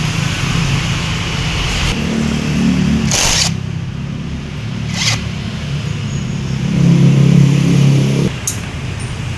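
Yamaha Vixion's single-cylinder engine idling and blipped up twice, about two seconds in and again around seven seconds in, with a short hiss about three seconds in. The engine's cylinder head gasket is blown.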